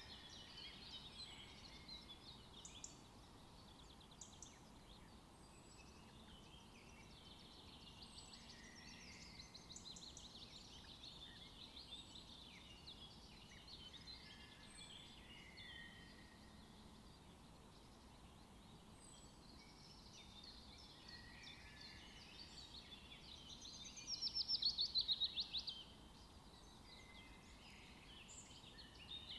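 Songbird chorus: several birds chirping and singing in short phrases over a faint steady background hiss, with one loud, fast trill near the end lasting about a second and a half.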